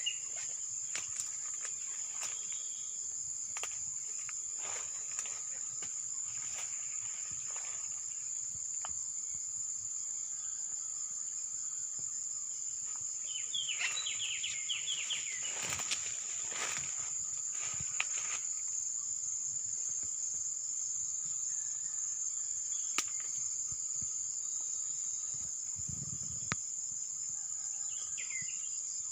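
Steady, high-pitched chorus of insects shrilling without a break. A bird breaks in twice with a short run of quick notes: about halfway through and again near the end.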